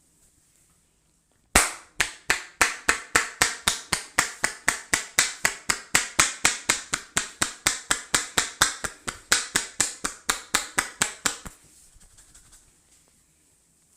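Rapid, even run of sharp slapping claps from a barber's percussive head massage, about four to five strikes a second. It starts sharply about a second and a half in and stops abruptly near the end.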